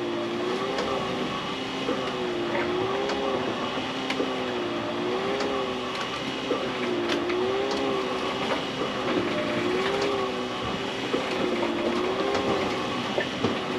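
A steady mechanical hum whose pitch rises and falls slowly over and over, with scattered light clicks, aboard a rolling sailing yacht.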